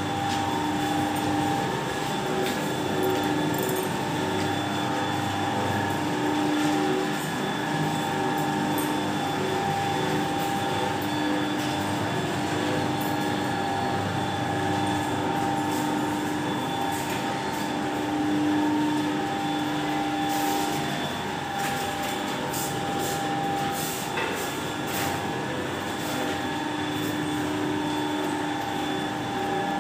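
Automatic roller noodle-making machine running steadily: a continuous mechanical hum from its motor and rollers with several held tones, and scattered sharp ticks in the last third.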